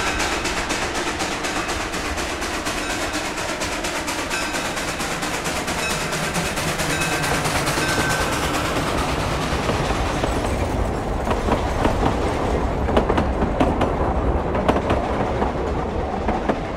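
Two-foot gauge steam freight train passing close by: the locomotive working with a rapid run of exhaust chuffs, then, in the second half, the freight cars rolling past with their wheels clacking over the rail joints.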